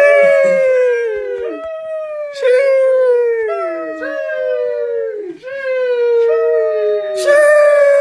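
The 'sheesh' meme sound effect: a voice drawing out 'sheeeesh', starting with a hiss and a long 'ee' that slides down in pitch. It repeats over and over, each new one starting before the last has ended.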